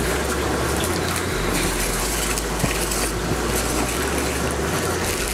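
Steady rush of circulating water and pumps from reef aquarium systems, with a low hum underneath. Light rustling and knocks of a cardboard box and its packing being handled.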